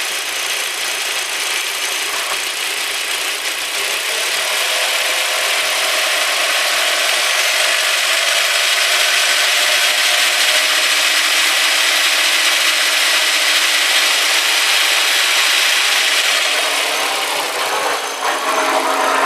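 Audi 1.8T AEB turbocharged four-cylinder engine running just above idle with a bad metallic squeaking from under the valve cover. The squeak appears with the engine warm at 1000–2500 rpm, and its cause is unknown. It grows louder a few seconds in and holds, with its pitch drifting slowly, then changes near the end.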